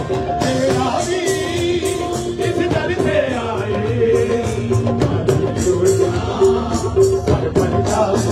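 Live amplified music: a man sings long held notes into a microphone over a steady drumbeat.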